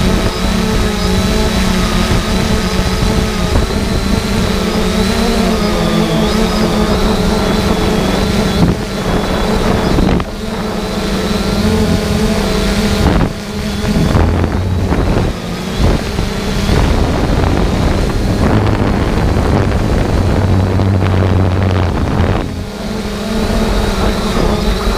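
Multirotor drone's motors and propellers whining steadily, the pitch drifting a little as it flies. Wind buffets the microphone in gusts through the middle.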